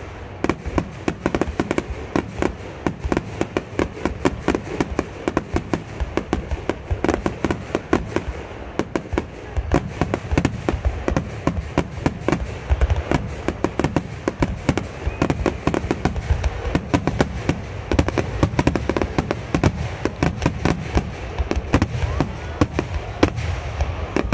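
A fireworks barrage: many aerial shells bursting in quick succession, overlapping booms and cracks several times a second with no let-up.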